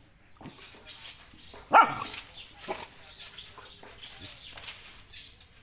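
A dog barking at a snake: one loud bark about two seconds in and a softer one a second later, over light rustling and scuffling.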